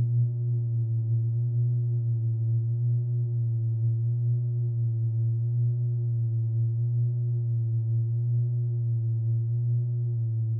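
A slowed-down iMovie sound effect: a steady low hum with a few higher overtones, its pitch wavering slowly up and down about every two seconds.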